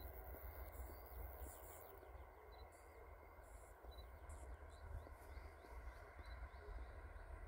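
Faint summer field ambience: insects in the grass chirping in short, very high-pitched bursts, with scattered small bird chirps and a low rumble of wind on the microphone.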